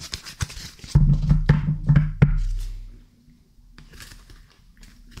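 A tarot deck being handled and shuffled over a wooden tabletop: a quick run of card clicks and flicks with low knocks over the first two seconds or so, then softer card handling.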